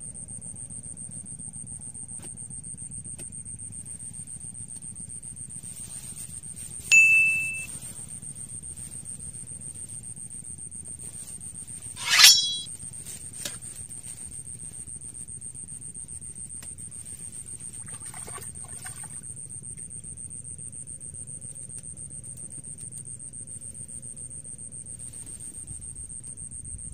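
Two sharp metallic dings from a small bite bell on a fishing rod, about seven and twelve seconds in, the second louder and jangling: a fish is taking the bait. Under them runs a steady high-pitched whine and a low rumble.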